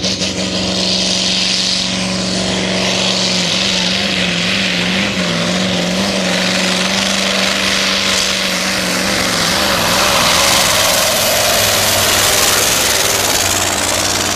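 Supersport pulling truck's diesel engine running flat out under full load as it drags the weight-transfer sled, a loud steady engine note that wavers briefly and grows a little louder in the second half.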